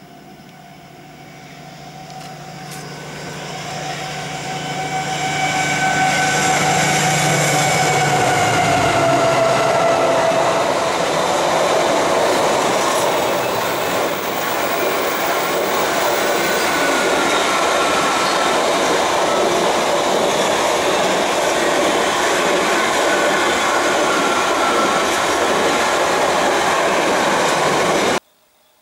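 Class 70 diesel locomotive, with its GE PowerHaul V16 engine, hauling a long container train past. The engine's drone builds over the first few seconds and fades after about nine, then the container wagons run past with a steady rush and some wheel squeal. The sound cuts off suddenly near the end.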